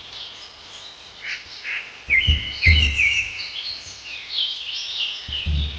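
Small birds chirping and twittering in quick, varied calls, with a few low dull thuds about two seconds in and again near the end.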